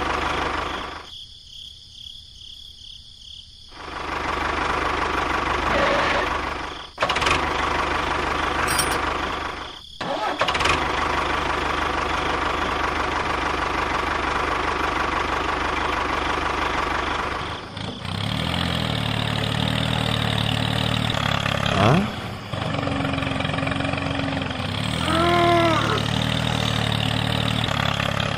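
Tractor engine sound running steadily, dropping away briefly near the start and broken by short cuts. After about eighteen seconds it changes to a lower, steadier engine note. Near the end there is a brief rising-and-falling whistle.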